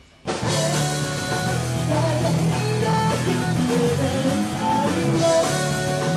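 Rock band playing full out, with electric guitars, bass and drum kit, starting abruptly just after the start.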